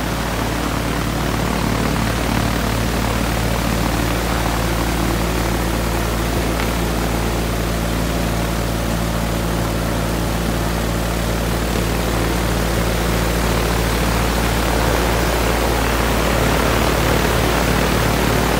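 Viking 130 aircraft engine, a Honda-based four-cylinder, running steadily on the ground with its propeller turning.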